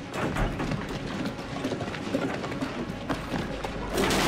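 Irregular wooden knocks and clatter with scuffing footsteps, as of planks being pried off and dropped on rubble, laid in as sound effects. About four seconds in, a louder, denser rushing noise takes over.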